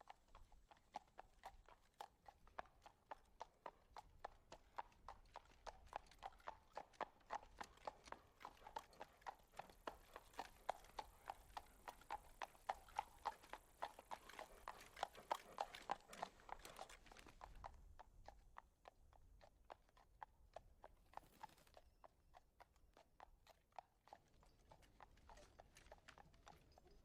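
Horse hooves clip-clopping in a steady rhythm, growing sparser and fainter about two-thirds of the way through.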